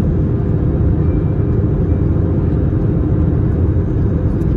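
Steady low rumble of cabin noise inside an Airbus A321-231 in descent: engine and airflow noise heard from a window seat over the wing, even and unbroken.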